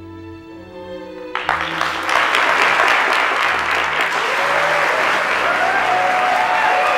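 Soft sustained music, then an audience breaks into applause about a second and a half in, the clapping swelling quickly and going on steadily with the music still underneath.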